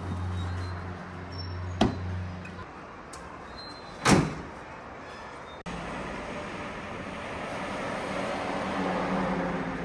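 Pickup truck tailgate slammed shut with one loud knock about four seconds in, after a steady low hum. Then road and wind rush from the truck driving along.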